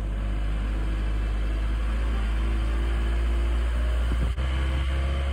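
Steady road and engine noise heard inside a moving car's cabin: a strong low rumble under an even hiss, with a brief break just past four seconds in.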